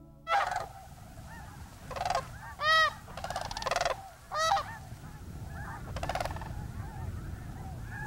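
Sandhill cranes calling: about six loud rolling calls spread over the first six seconds, the loudest a little under three seconds in, with many fainter calls from a distant flock behind them.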